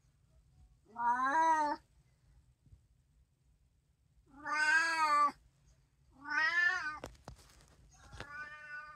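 Domestic cat meowing four times, each call under a second long, the last one quieter. A few sharp clicks sound between the third and fourth meows.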